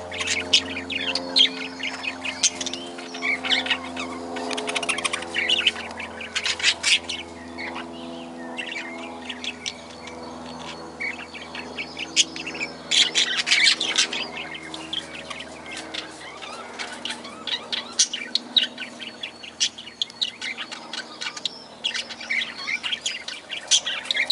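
A flock of aviary birds chirping and chattering continuously, many short calls overlapping, with louder flurries about halfway through.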